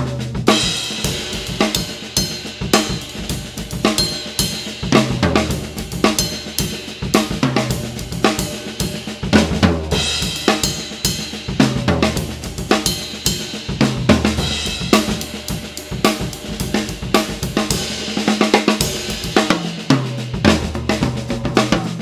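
A Sakae "The Almighty" series drum kit played continuously, with kick drum, snare, hi-hat and cymbal hits and recurring low drum booms.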